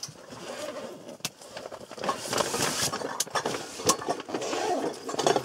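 Rustling and scraping with several sharp knocks and clicks from gear being handled and moved about.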